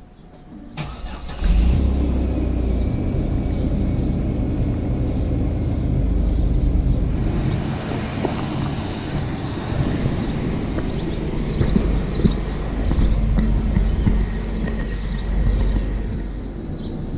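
Chevrolet Blazer cold start: the starter cranks briefly about a second in, the engine catches, and it then runs on with a steady rumble that swells and dips a few times.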